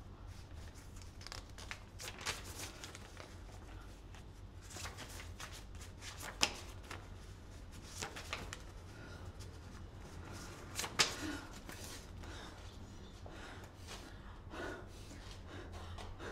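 Paper rustling and crinkling as envelopes are opened and a printed letter and photographs are handled, with a few sharp snaps of paper, the loudest about two-thirds of the way through.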